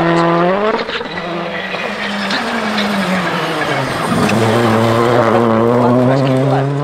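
Citroën C3 Rally2 rally car's engine running hard at high revs. About four seconds in the pitch dips and drops, then it pulls on at a lower pitch that slowly rises.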